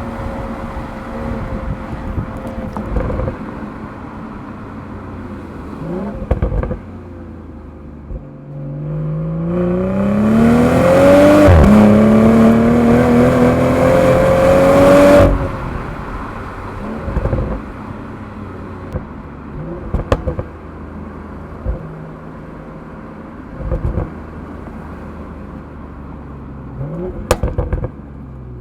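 BMW M340i's turbocharged 3-litre inline-six heard from outside through its twin exhaust pipes: running steadily, then a full-throttle launch about eight seconds in, the note climbing, a quick upshift, climbing again, and cutting off abruptly about fifteen seconds in. Afterwards it runs low again, with a few short knocks.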